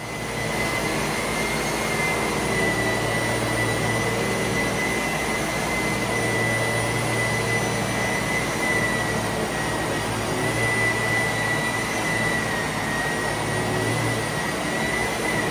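Hand-held rotary sander running steadily under load, sanding old paint off a truck cab's door: a constant hiss with a steady high whine that wavers slightly.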